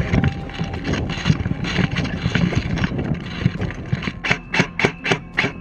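Rustling and knocking of a player moving with rifle and kit, then about five single shots from a suppressed G&G Predator airsoft electric rifle, roughly three a second, in the last second and a half.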